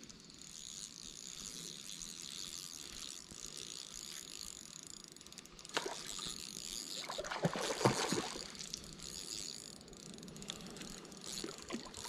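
Spinning reel being cranked steadily to bring in a hooked, fighting trout, with a few splashes from the fish at the surface about halfway through.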